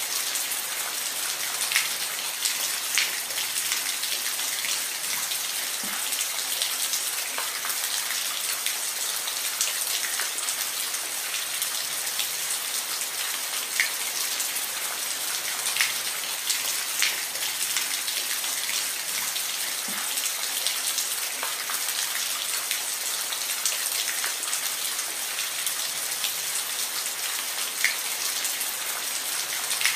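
Steady rain falling on a surface, an even hiss with individual drops ticking sharply here and there.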